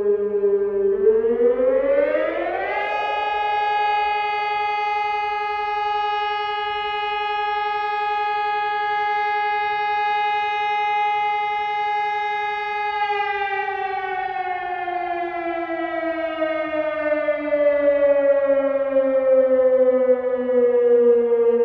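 Sonnenburg SES 2400 electronic high-performance siren (2400 W) sounding a test alarm. Its tone rises quickly about a second in, holds a steady high pitch for about ten seconds, then slowly falls back to a low pitch.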